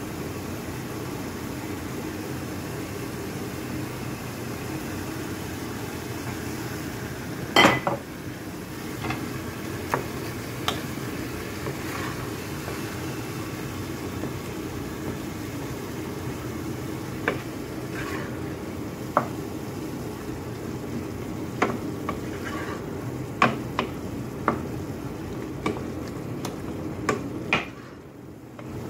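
A wooden spoon stirs ground beef and tomato sauce in a pan, knocking against the pan now and then. The loudest knock comes about a quarter of the way in. Under it runs the steady hum of an air conditioner.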